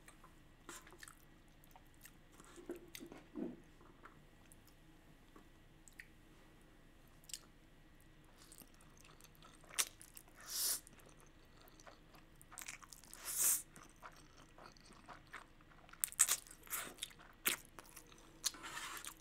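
Close-miked eating of spicy instant fire noodles: scattered small clicks, then two short slurps of noodles about ten and thirteen seconds in, followed by wet chewing and mouth clicks near the end.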